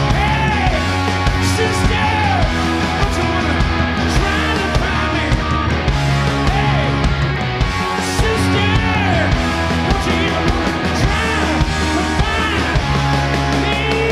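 Live rock band playing a slow, heavy rock song with drums, bass and electric guitars. A lead guitar plays notes that bend up and fall back every second or two over steady drum beats.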